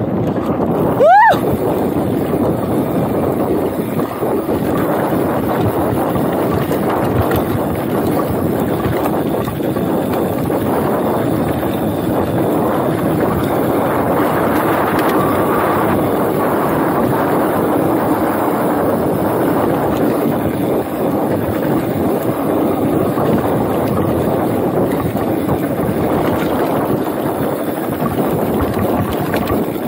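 Wind rushing over the microphone of a chest-mounted action camera, mixed with mountain-bike tyres rolling over a dirt trail at speed, a steady noise throughout. About a second in there is one brief high squeal that glides up and back down.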